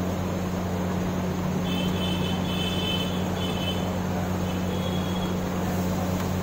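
Steady low hum and whir of machinery running, most likely the samosa-sheet making machine. Faint high-pitched squeaks come and go a few times in the middle.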